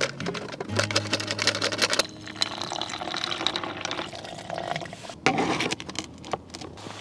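Water being poured into a container to make instant soup, with scattered clicks of handling throughout.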